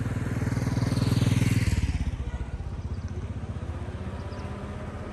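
A motor vehicle's engine running close by with a pulsing rumble, growing louder to about a second and a half in and then dropping back to a quieter steady hum.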